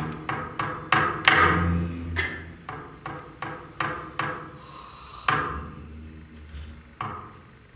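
Sticks striking small hard percussion objects in a free, irregular run of sharp knocks, about two to three a second, thinning out after about four seconds. A short low note sounds under the knocks about one and a half seconds in.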